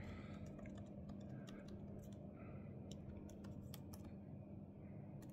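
Lenovo laptop keyboard keys tapped to step through a BIOS menu: faint, irregular clicks, over a steady low hum.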